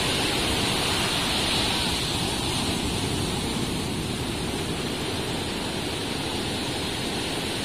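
Steady wash of sea surf on the shore, with wind rumbling on the microphone.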